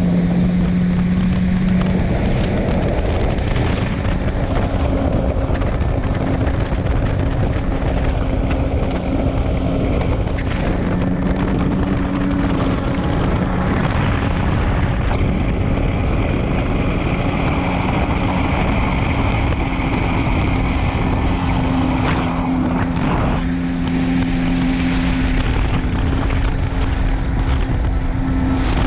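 2019 Kawasaki jet ski engine running under way, its pitch shifting up and down with the throttle, with wind buffeting the microphone.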